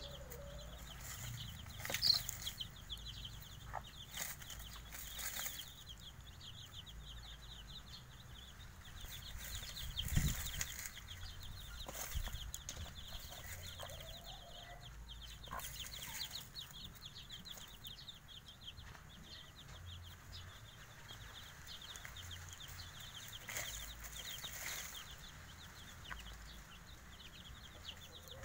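A brood of five-day-old Javanese village chicks (ayam kampung) peeping without a break in many short, quick falling notes. The mother hen gives a few low clucks, and some brief rustles and knocks come from birds scratching and moving about.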